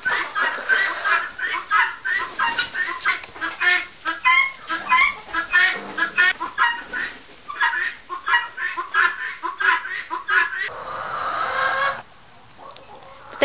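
Chickens clucking and calling, many short calls in quick succession. Near the end a steady hiss for about a second, after which it goes quieter.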